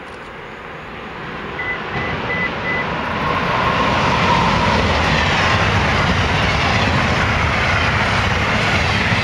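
Electric locomotive-hauled passenger train approaching and passing at speed on the electrified main line. The rumble and rush of the locomotive and coaches grow over the first few seconds, then hold steady and loud as the cars go by. A few short high beeps sound about two seconds in.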